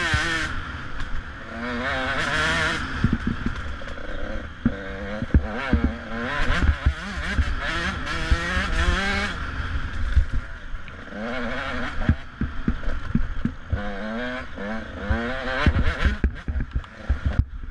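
Off-road motorcycle engine revving hard and shifting up and down through the gears at racing speed, heard close up from a camera on the bike, over a heavy low rumble of wind buffeting. Frequent short knocks and clatter from the bike working over the rough dirt track.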